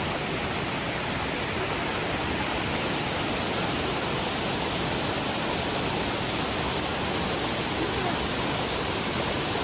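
MacKenzie Falls waterfall: a loud, steady rush of falling water.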